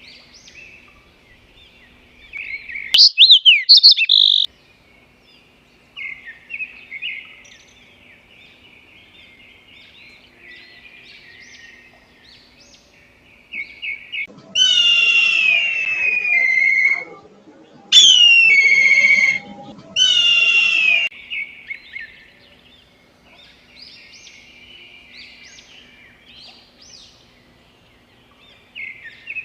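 Birds chirping and singing without a break, with a loud flurry of calls about three seconds in. About halfway through come three loud, drawn-out calls, each falling in pitch.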